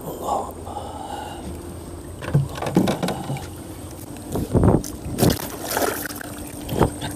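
Hooked marble goby thrashing at the water surface beside the boat, throwing up a run of sharp splashes that start about two seconds in and are loudest near the middle.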